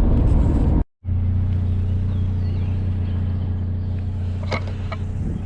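Pickup truck driving: a steady low engine and road drone. The sound cuts out completely for a moment about a second in, and a few light clicks come near the end.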